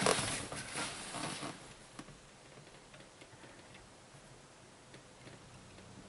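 Rustling of body movement that fades after about a second and a half, then a few faint, scattered light clicks as a test light probe is worked around the under-dash fuse panel.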